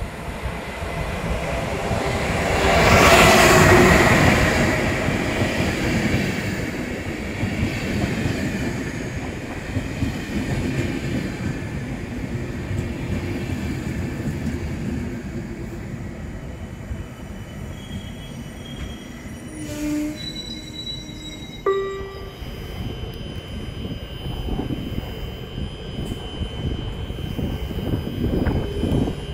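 Siemens Vectron electric locomotive hauling Intercity passenger coaches into the platform, loudest as the locomotive passes about three seconds in, then the coaches rolling by and slowing to a stop. Brakes squeal briefly about twenty seconds in, followed by a thin steady high whine.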